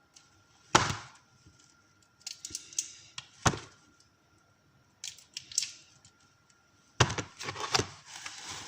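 Sharp knocks and clatter on a hard kitchen surface: single strikes spread a few seconds apart, then a busier run of clattering near the end.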